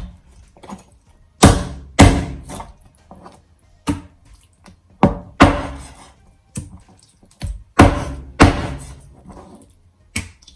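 Chicken bones being chopped: a dozen or so sharp, heavy chops at uneven intervals.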